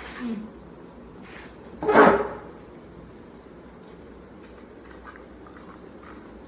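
Small cardboard boxes being handled while shampoo bars are packed into them: faint rustles and ticks, with one louder short scrape about two seconds in.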